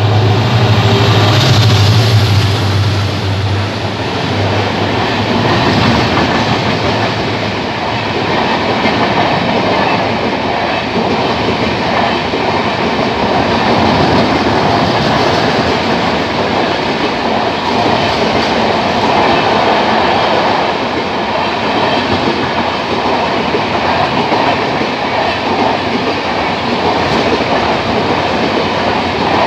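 WDP4D diesel-electric locomotive's 16-cylinder two-stroke EMD engine drones as it passes close by at speed. The drone fades over the first few seconds into the steady rush and clickety-clack of passenger coaches running past on the track.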